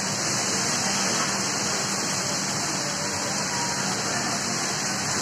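Heavy rain pouring steadily onto wet pavement and street: an even, unbroken hiss.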